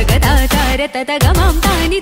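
A song playing: a winding melody over deep drum hits that drop in pitch. The sound thins out briefly about a second in.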